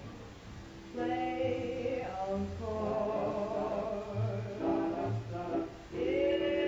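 Music: a recorded song with several voices singing long held notes in harmony over a bass line, the longest chord starting near the end.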